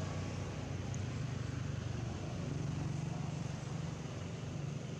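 A motor engine running steadily with a low hum, its note stepping up slightly about two and a half seconds in.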